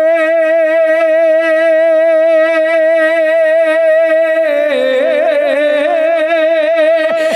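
Music from a devotional naat song: one long held note with vibrato, then a melodic run starting about four and a half seconds in.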